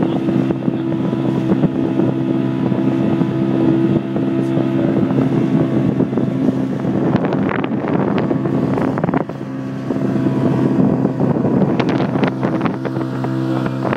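Motorboat engine running steadily underway, a constant hum, with wind on the microphone that gusts harder around the middle and near the end.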